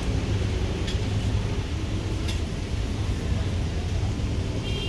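Steady low rumble of road traffic, with a couple of faint short ticks about one and two seconds in.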